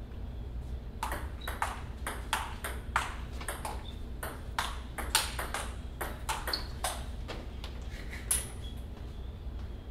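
Table tennis rally: a celluloid ball clicking back and forth off paddles and the table, about three clicks a second, the rally stopping about seven seconds in. One sharper, brighter click comes near the end.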